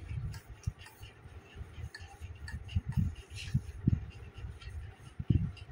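Rolling pin working croissant dough on a floured sheet: soft, irregular low thuds with a faint scraping.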